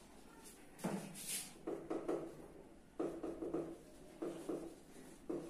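Marker writing on a whiteboard: a series of short strokes in quick succession, with pauses between words.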